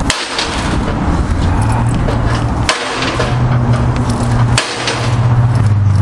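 An engine running at steady speed, its hum broken three times by a brief drop-out with a click, about two seconds apart.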